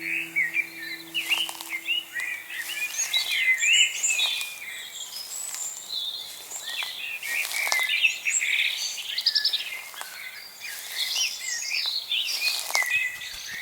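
Dawn chorus: many songbirds singing at once, their songs overlapping continuously.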